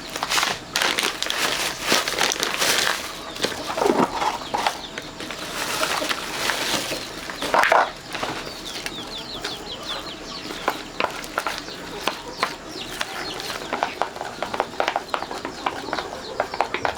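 Chickens clucking with a couple of short squawks, among many small clicks and knocks.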